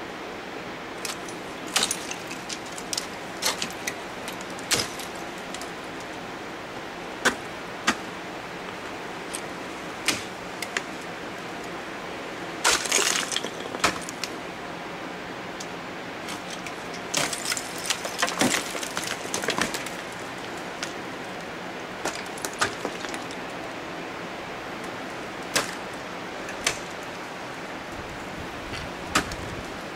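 Ice axes being swung into and pulled out of an icefall: scattered sharp knocks of the picks biting into the ice, with two longer stretches of clattering, one near the middle and one a few seconds later.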